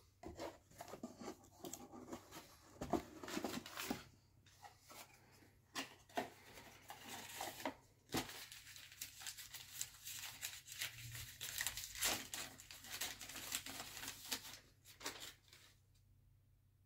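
Crumpled brown kraft packing paper rustling, crinkling and tearing as a wrapped item is pulled out and unwrapped by hand, in an uneven run of scratchy rustles with a short pause about eight seconds in.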